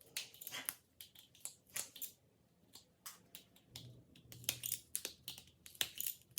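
Irregular small clicks and crackles of strips of edge banding and double-stick tape being handled and pressed by hand, about three or four ticks a second with short gaps.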